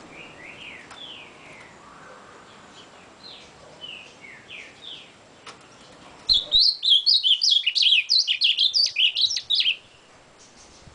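Ultramarine grosbeak (azulão) giving soft, scattered whistled notes, then about six seconds in breaking into a loud, rapid warbling song that lasts about three and a half seconds and stops abruptly.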